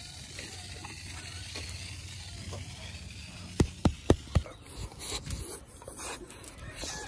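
Faint rustle of steps in rubber boots over mud and dry grass, then four sharp knocks in quick succession about three and a half seconds in.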